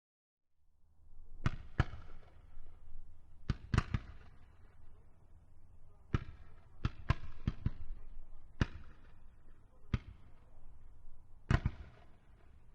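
81 mm medium mortar firing a series of rounds: about a dozen sharp reports at irregular intervals, several coming in close pairs, each with a short echoing tail over a low rumble.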